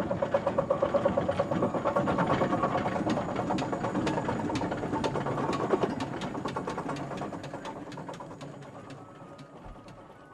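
Steam traction engine running, its motion clattering in a quick, even rhythm of about five beats a second, fading away over the last few seconds.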